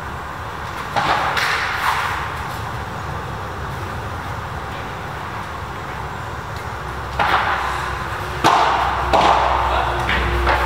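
Padel ball hits: a few sharp racket strikes and bounces about a second in, then a quicker run of strikes from about seven seconds on as a rally gets going, each ringing briefly under the covered court's roof.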